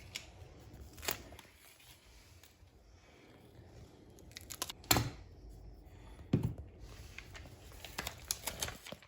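Scattered crinkles, rustles and sharp snaps of flooring material being cut and handled, the loudest about five seconds and six and a half seconds in, with a quick run of small clicks near the end.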